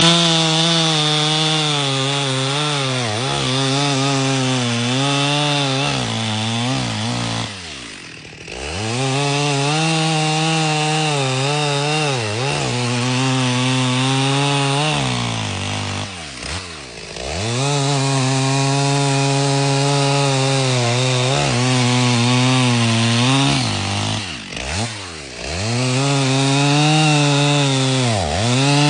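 Two-stroke chainsaw cutting through dense oak logs at full throttle, its engine pitch wavering as the chain bogs in the hardwood. Three times it drops briefly to a low pitch and revs back up, roughly eight seconds apart.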